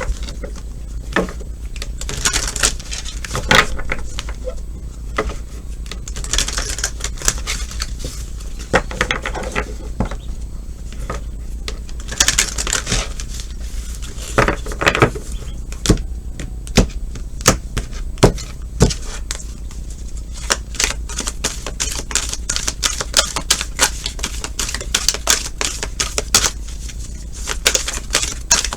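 A deck of tarot cards being shuffled by hand: a long run of quick card clicks and flicks in irregular flurries, coming thicker and faster in the last third.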